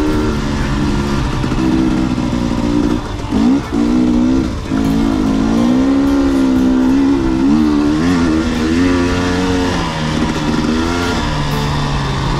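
Dirt bike engine running under throttle, its pitch rising and falling as the rider rolls on and off. Several quick throttle chops with short drops in pitch about three to five seconds in.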